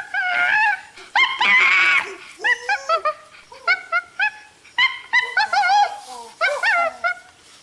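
An animal giving rapid, high-pitched yips and whining cries, with one longer wavering whine about a second in.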